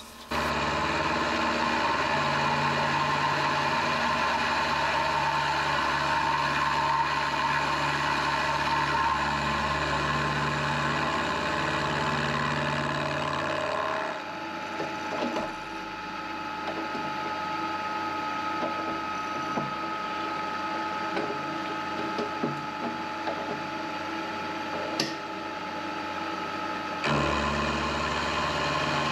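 Milling machine running a high-speed steel end mill dry through a mild steel block: a steady motor and spindle hum with the noise of the cut over it. About halfway through the sound drops and thins, then comes back fuller a couple of seconds before the end.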